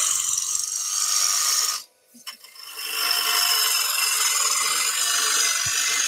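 Gouge cutting into a spinning wooden bowl blank on a wood lathe, taking out the bulk of the inside: a steady noisy cut with shavings coming off. The cut stops for about a second about two seconds in, with a small click, and then starts again.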